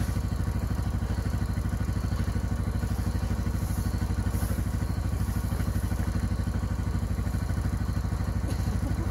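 A side-by-side utility vehicle's engine idling steadily, with an even low throb.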